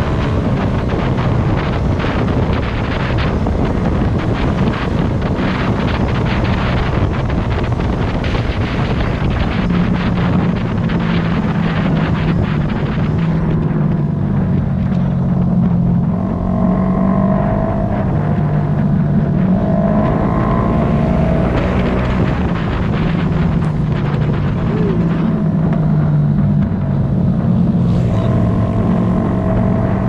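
Honda CBR250RR parallel-twin engine running under way, with wind rushing over the microphone. The wind dominates the first part, and later the engine note comes through more clearly, rising and falling as the revs change.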